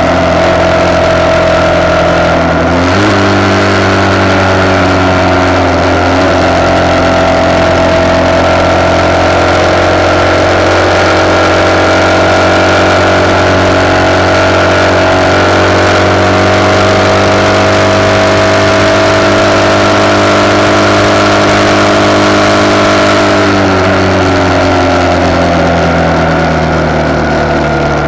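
RPS Hawk 250's single-cylinder engine, breathing through a Keihin PWK30 carburettor and a de-catted CRF230 exhaust, running steadily at cruising speed under heavy wind noise on the handlebar-mounted camera. The note changes abruptly about three seconds in, then holds steady. From about 23 seconds in it falls smoothly as the bike slows.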